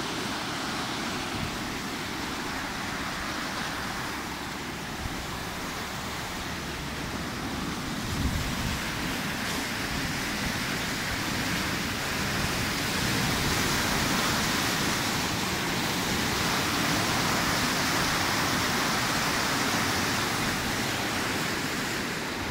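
Steady rushing of a swollen river in flood, close to overflowing a bridge: a dense, even roar of water that grows a little louder after about eight seconds.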